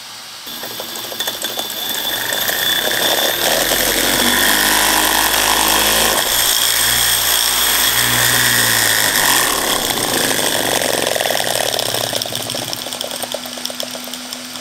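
A 480KV brushless outrunner motor spinning a direct-driven RC monster-truck wheel. Its whine rises as it spins up over the first few seconds, holds at speed, then falls off as it slows near the end.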